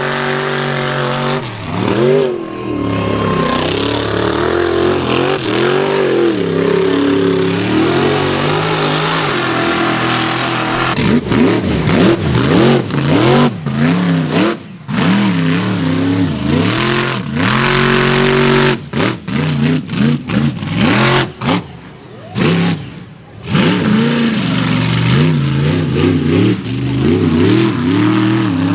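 Mega truck engines revving hard again and again, the pitch swinging up and down every second or so as the trucks power through mud. The sound cuts off briefly several times and picks up again.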